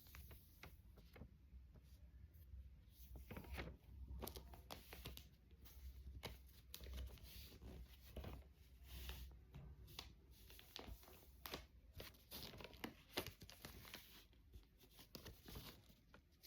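A sheet of paper being folded and creased by hand: faint, irregular crinkles and crisp rustles throughout.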